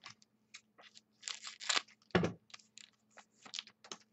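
Foil pack of football trading cards being torn open and the cards handled: a run of irregular crinkles, scrapes and small clicks, with two louder crinkling bursts about halfway through.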